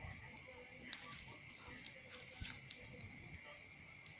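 Burning straw fire crackling, with scattered sharp pops, the loudest about a second in, over a steady chorus of crickets.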